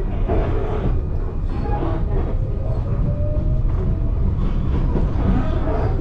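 Small electric commuter train of the Gakunan Railway heard from inside the car, rumbling steadily over the track as it pulls away from a station. A faint motor whine rises in pitch as it gathers speed.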